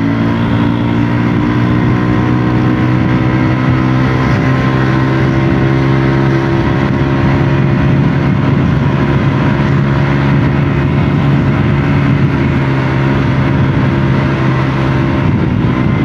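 Small belt-drive (CVT) motor scooter's engine running steadily at cruising speed, heard on board while riding, under a constant rush of noise.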